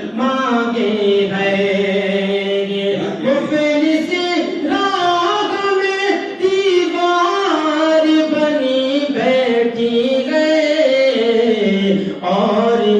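A man singing a naat into a microphone, in long drawn-out notes that glide and step up and down between short breaths.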